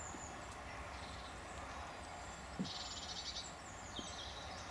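Small birds singing faintly in the woodland: short, high, fast-trilled phrases, the longest about three seconds in. A soft knock comes about two and a half seconds in.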